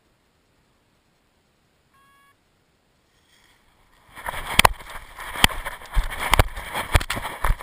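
A short electronic beep about two seconds in, then from about four seconds wind buffeting a paraglider pilot's action-camera microphone in gusty rushes, broken by sharp knocks.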